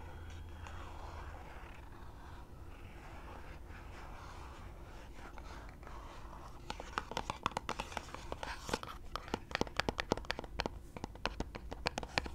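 Long fingernails scratching softly on a small cardboard box. About halfway through they switch to tapping on it: many quick, sharp taps in rapid succession.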